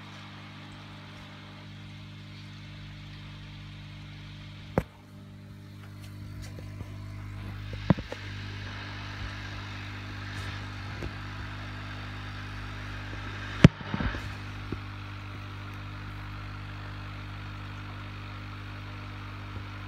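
Aquarium filter running: a steady low hum with a hiss above it, broken by three sharp knocks, the loudest about two-thirds of the way through.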